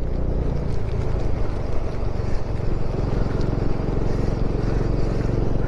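Motorcycle engine running at a steady speed while riding, its even note under a constant hiss of wind and road noise.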